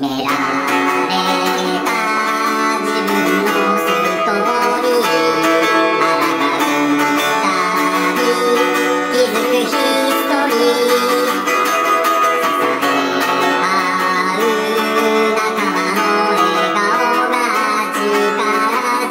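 Background music: a song led by guitar that starts abruptly and plays steadily.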